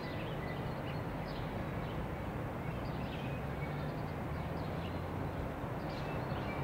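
Outdoor street ambience: a steady low traffic hum with scattered small bird chirps.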